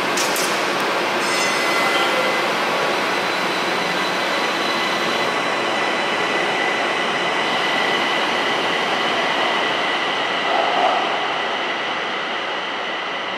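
Pittsburgh light rail train pulling away from the platform into the tunnel. It runs as a steady rumble with a high whine, fading near the end as it recedes.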